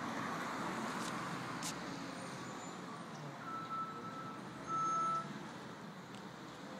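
Garbage truck running down the street with a steady low rumble, and two beeps of a reversing alarm a little past halfway, the second louder.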